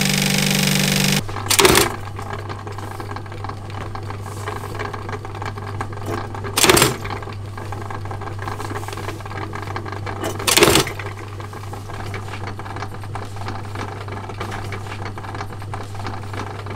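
Industrial sewing machine running as it stitches a leather belt, stopping abruptly about a second in. Then a motorised die press hums steadily and strikes three times, each a short loud clunk a few seconds apart.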